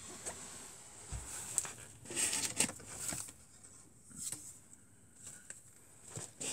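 Wooden arrows being pulled out of a foam archery target by hand: a string of short scraping rubs and clicks, loudest around the middle. A dull low thump comes about a second in.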